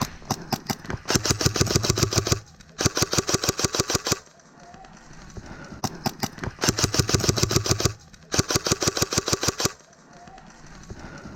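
Airsoft gun firing four long full-auto bursts of rapid, evenly spaced shots, each about a second and a quarter, with a few single shots before the first and third bursts.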